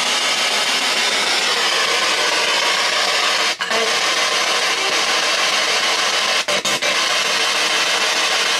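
P-SB7 spirit box sweeping the FM band, giving continuous loud radio static. The static cuts out for an instant about three and a half seconds in, and a few more times around six and a half to seven seconds.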